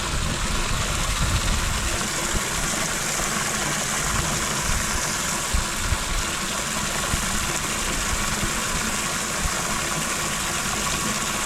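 Steady rush of well water running from a hose into a metal water tank.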